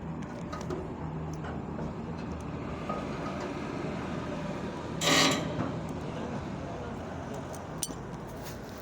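Steady low hum of vehicle engines running nearby, with faint ticks and one brief loud hiss-like burst about five seconds in.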